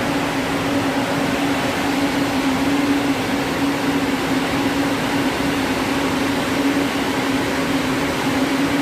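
Spinning-mill machinery, such as roving frames, running at full speed: a loud, even mechanical drone with a steady low hum.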